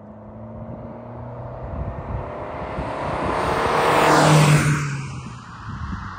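Mercedes-Benz W124 200D with its four-cylinder diesel engine driving past, growing louder as it approaches. It is loudest about four seconds in, and its pitch drops as it goes by and fades away.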